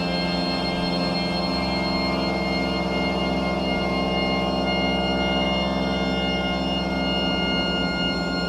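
Instrumental music: one long sustained chord held steady, with a slow wavering pulse in its lower notes.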